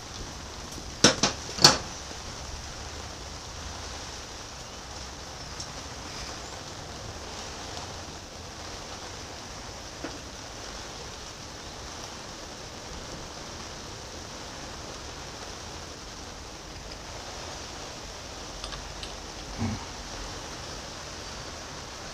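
Metal hand tools and parts knocking on the cast-iron headstock of a 1931 South Bend lathe being taken apart: three sharp metal clinks about a second in, then a steady hiss with a single dull knock near the end as a shaft is worked loose.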